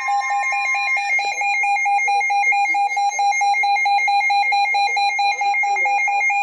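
Several weather alert radios sounding their tornado-warning alarms at once. A steady, rapidly pulsing alarm tone is layered with a higher two-pitch warble, and another steady tone cuts off about a second in.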